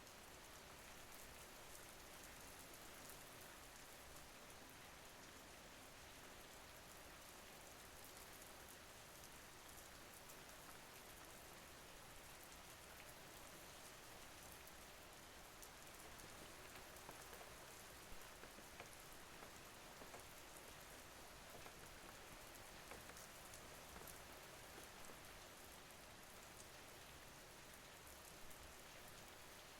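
Faint, steady rain falling, an even hiss with scattered drops ticking.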